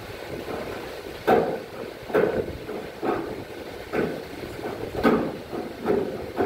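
Six sharp knocks, about a second apart, from work on the truck's bodywork.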